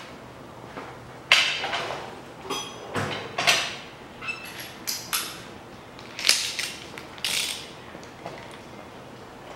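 Hand tools turning the connecting-rod cap bolts of a Mitsubishi 4B10 engine the final 90 degrees: a string of separate metallic clicks, clinks and scrapes, a few with a short ring.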